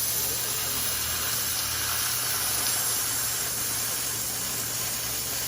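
A steady hiss with a low hum beneath it.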